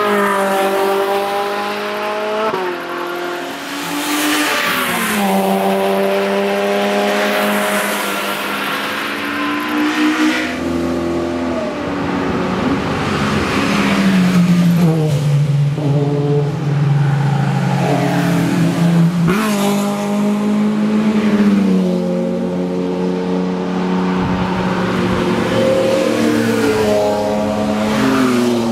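Sports cars passing one after another through a corner, each engine revving hard with its pitch climbing and then dropping sharply at every gear change. A Mitsubishi Lancer Evolution comes by about halfway through and a Porsche 911 near the end.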